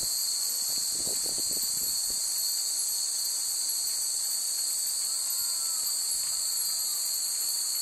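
Steady high-pitched insect chorus of a summer evening, with a few faint wind-chime strikes about a second in.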